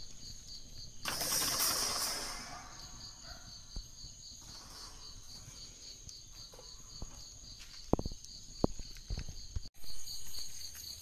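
Crickets chirping in a steady, pulsing high trill. A broad rushing noise comes about a second in, and a few sharp knocks come near the end.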